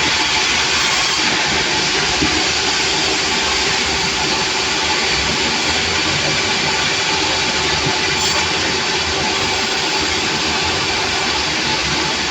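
Sawmill machinery running, a loud, steady mechanical din without break.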